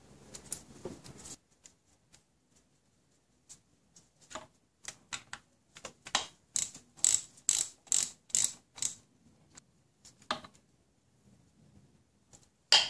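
Socket ratchet clicking in a string of short runs as it turns in the bolt that holds the power-steering hose clamp, with one louder knock near the end.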